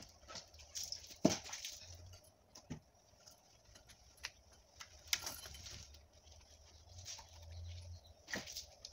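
A dog being scrubbed during a bath: irregular clinks of its metal chain and short wet rustles of hands working shampoo through its fur, with sharp clicks about a second in, around five seconds in and near the end.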